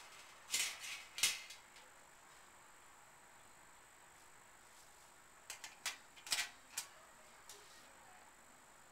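Metal clinks and rattles of a turkey fryer's lifting hook and rack knocking against a metal tray, in two short clusters: around the first second and again about six seconds in.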